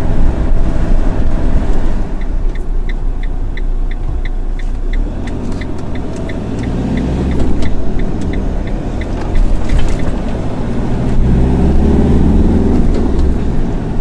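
Camper van driving, with engine and road noise heard from inside the cab. For several seconds in the middle the turn indicator ticks steadily, about three clicks a second. The engine pulls harder near the end.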